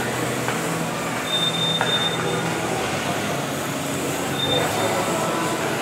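Kyosho Mini-Z 1:28-scale electric RC cars racing on a carpet track. Their small electric motors make a steady whir, with a thin high whine that rises out of it twice and fades.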